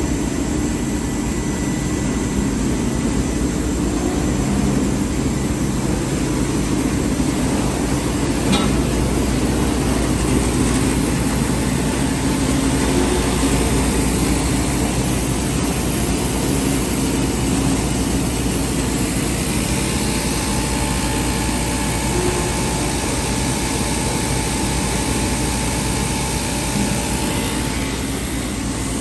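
Fully automatic bedsheet hemming machine running: a steady mechanical hum of its motors, rollers and sewing heads as the fabric feeds through, with one short click about eight and a half seconds in.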